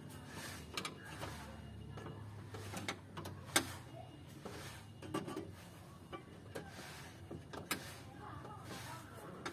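Scattered clicks and knocks of car-door parts being handled and fitted back together, with a low hum for about the first two seconds.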